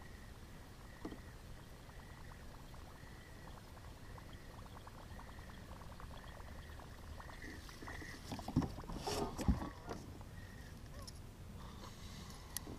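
Plastic sit-on kayak on calm water: faint lapping and small ticks against the hull, with a faint high note recurring about once a second. A few louder knocks and clatters come about two-thirds of the way in.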